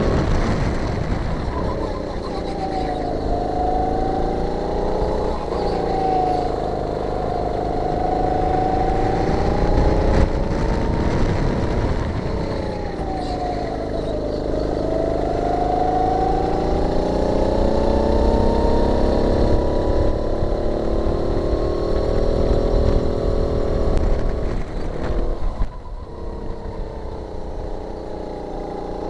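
Sodi kart's engine at speed, heard from on board, its pitch rising and falling as the driver accelerates and lifts through the corners. The engine note dips clearly a few seconds in and around halfway, and near the end both pitch and loudness drop as the kart slows for a tight corner.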